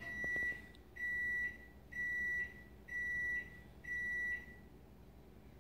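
Five evenly spaced electronic beeps, one a second, each a steady high tone about half a second long.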